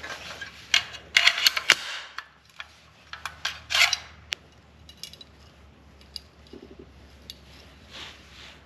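Small metal gun parts clicking and clattering as an AR-15 magazine catch and release are handled and fitted into the lower receiver. A burst of sharp clicks and short rattles comes in the first half, then only scattered light ticks.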